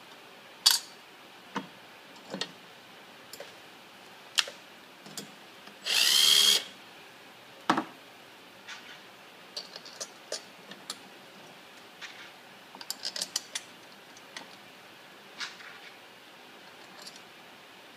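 Light clicks and taps of steering-wheel screws and metal parts being handled and fitted, with one short run of a cordless drill-driver about six seconds in, its whine rising as it spins up.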